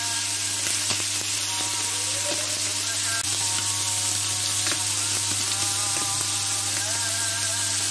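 Caul-fat-wrapped liver skewers (melfouf) sizzling steadily on an electric plancha griddle, the fat spitting and hissing.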